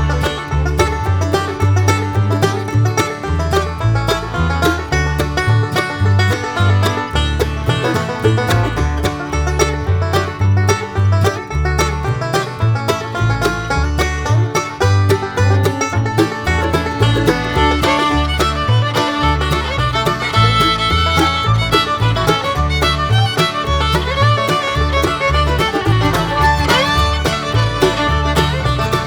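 Instrumental background music with a steady beat, in a bluegrass style with banjo and fiddle.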